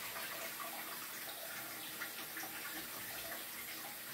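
Kitchen tap running steadily into a pot at the sink as rice is rinsed.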